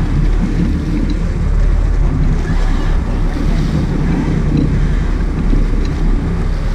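Sport-fishing boat's engines rumbling steadily under rushing water at the stern, with wind buffeting the microphone.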